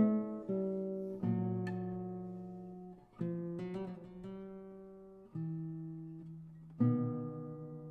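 Solo classical guitar, a replica of a 19th-century Panormo guitar, playing a slow passage of plucked chords and single notes, each left to ring and fade, with a quick run of notes about four seconds in and a last chord near the end that rings on.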